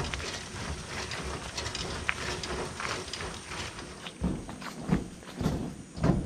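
Footsteps and body-movement rustle of a person walking a jungle path, with a few heavier thumps in the second half. Under them runs a steady high-pitched drone from jungle insects.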